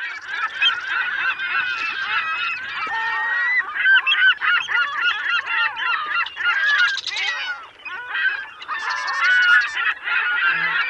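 A crowd of many high-pitched, squeaky voices cheering and chattering all at once, overlapping calls with no clear words.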